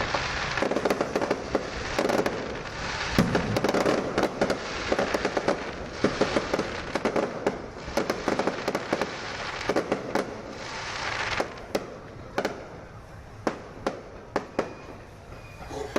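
Aerial fireworks display: many shells bursting in quick succession over dense crackling, thinning to scattered single bangs about two-thirds of the way through.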